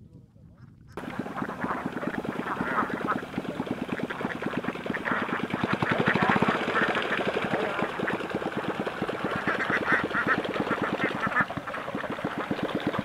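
A flock of Alabio ducks quacking, many calls overlapping in a dense, continuous chorus that starts abruptly about a second in.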